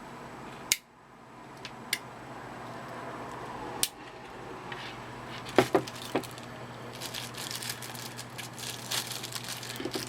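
Pocket knives being handled: a few separate sharp clicks and knocks, then continuous crinkly rustling from about seven seconds in, over a low steady hum.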